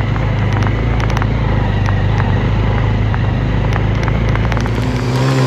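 Motorcycle riding over a rough stony dirt road, recorded from on the bike: a steady low engine and wind rumble with frequent small knocks and rattles from the bumpy road. Near the end the rumble turns into a steadier pitched drone.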